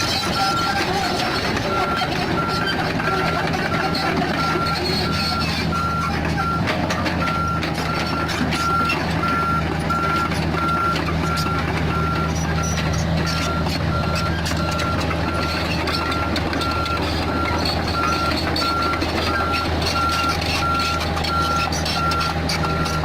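Komatsu PC45 mini excavator's diesel engine running steadily under work, with a travel/reversing alarm beeping evenly at about one and a half beeps a second.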